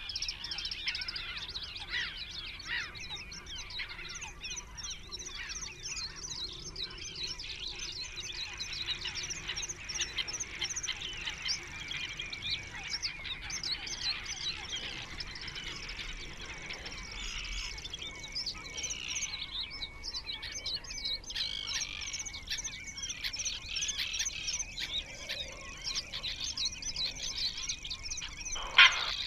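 Small birds singing and chirping all around, many high calls overlapping. One loud, short, sharp sound comes near the end.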